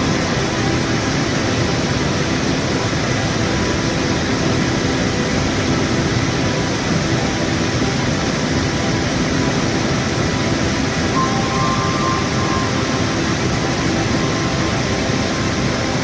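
Waterfall: a steady, unbroken rush of falling water, running a little high after overnight rain.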